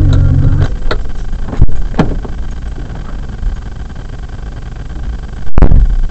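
Car running in slow traffic, heard from inside the cabin through a dashcam's microphone: a low engine rumble that eases off under a second in, then quieter running with a few sharp clicks and two short loud thumps, the second near the end.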